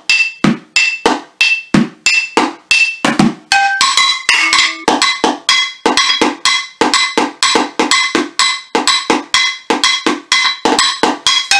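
Wooden spoons drumming on upturned saucepans and a plastic container, a steady beat of about three strikes a second that turns busier a few seconds in. Some strikes leave a short metallic ring from the pans.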